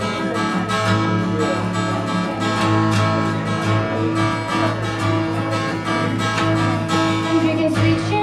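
Music: acoustic guitar strummed in a steady rhythm, in a country style.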